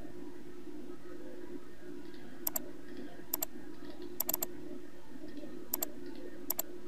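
Computer mouse clicking in quick double-clicks, about five bursts from about two and a half seconds in, one of them a triple click, over a steady low hum.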